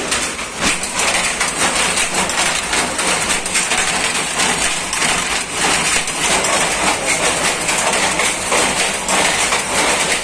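Power looms running with a loud, rapid, continuous clatter.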